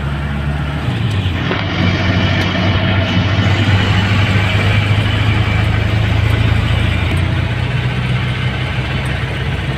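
Passenger jeepney's diesel engine running under way, heard from inside the open cab, with road and wind noise. Its note shifts lower about a second in, then holds steady.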